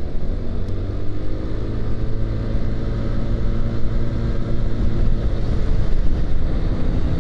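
Motorcycle engine pulling steadily under way as the bike rides off, its pitch rising a little at first and then holding, with wind rumble on the microphone.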